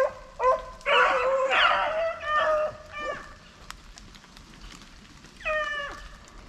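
A pack of beagles baying as they run a rabbit: several overlapping bawls in the first three seconds, then one more drawn-out cry, falling in pitch, near the end.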